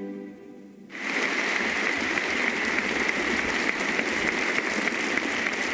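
The last chord of a string orchestra dies away, and about a second in a concert audience breaks into steady applause.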